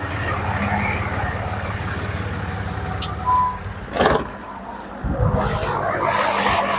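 A motor running steadily, cutting off about three seconds in, followed by two sharp knocks and some handling noise.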